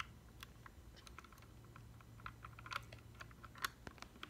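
Faint, irregular clicks and taps of tiny plastic Polly Pocket figures being set down and pressed into a plastic toy playset.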